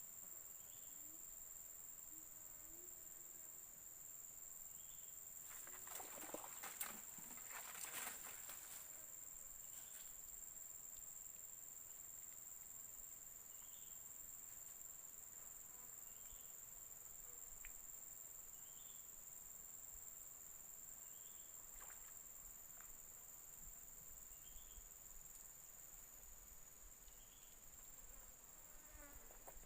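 Forest insects buzzing in a steady, high-pitched drone, with a faint short chirp repeating every second or two. A brief rustle comes about six to nine seconds in.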